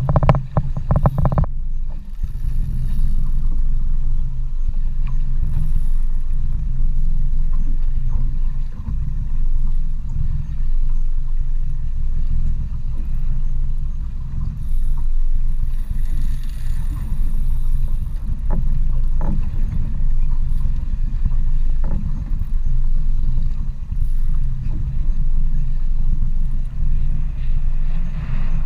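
Low, steady rumble of a boat's twin Mercury outboard motors idling.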